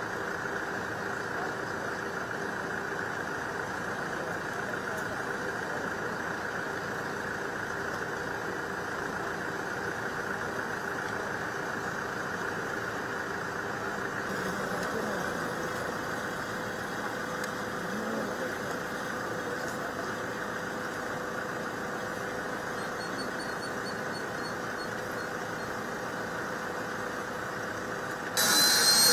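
A steady engine drone, like a vehicle idling. Just before the end the sound suddenly gets much louder and a high whine starts rising in pitch: a helicopter's turbine engine starting up.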